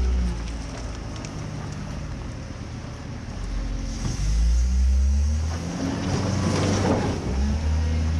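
Mini excavator's diesel engine running under varying load, its note rising and falling as the hydraulics work, louder from about halfway through.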